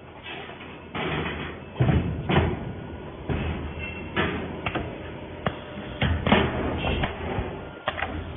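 2D wire bending and butt welding machine working: an irregular run of mechanical clunks and knocks, each with a short burst of noise, several times a second.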